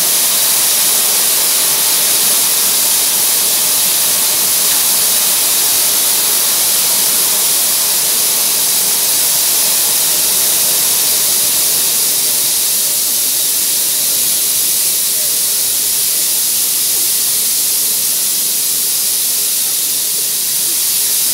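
Steady, loud hiss of steam escaping from a standing steam tank locomotive, North Eastern Railway 0-4-0 tank engine No. 1310.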